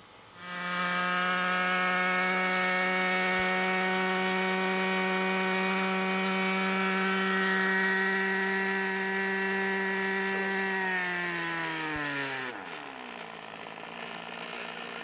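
Small RC model airplane engine running at high throttle with a steady high-pitched whine while the plane is held by hand, then throttled back about eleven seconds in, its pitch falling over a couple of seconds to a quieter, lower idle.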